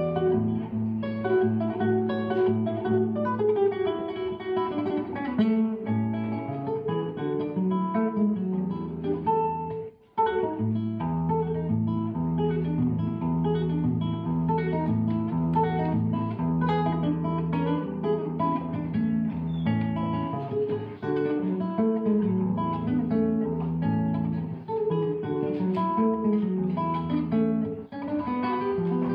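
Solo nylon-string classical guitar played with the fingers, an Argentine gato mixing plucked melody with strummed chords. The playing stops briefly about ten seconds in, then picks up again.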